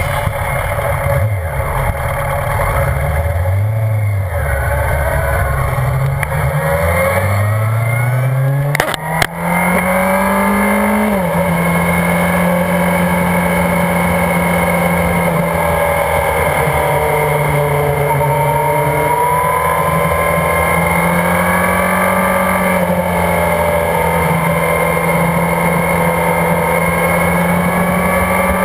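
Race-car engine heard from a camera mounted on the car, revving up as the car accelerates onto the track. After about eleven seconds it holds at steady high revs, with small rises and dips. There is a brief click about nine seconds in.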